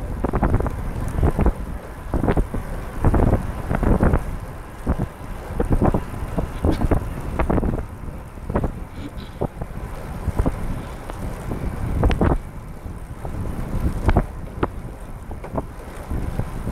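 Wind buffeting the microphone of a camera mounted on a recumbent trike riding along a wet road in the rain. It is a gusty rumble broken by frequent short knocks and pops.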